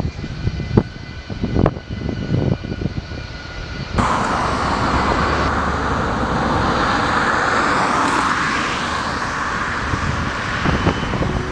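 Boeing 737-800 jet engines whining steadily after landing, with gusty low buffeting. About four seconds in, the sound changes abruptly to the loud, steady roar of a Boeing 737-200's low-bypass Pratt & Whitney JT8D engines on final approach.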